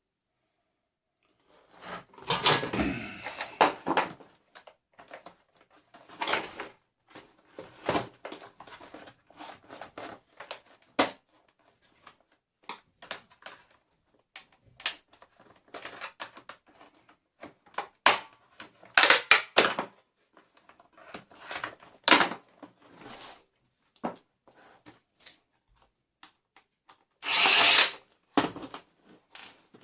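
Vacuum cleaner being taken apart with tools: scattered knocks, clicks and scraping of plastic and metal parts, with a few louder stretches of a second or two.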